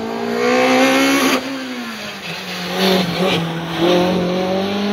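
A race car's engine revving hard: its pitch climbs, drops off sharply about a second and a half in and sinks as the driver lifts for a corner, then climbs again near the end as it accelerates away.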